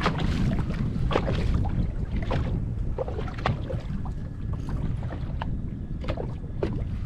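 Wind buffeting the microphone as a steady low rumble, with irregular small splashes and knocks of water lapping against the boat's hull.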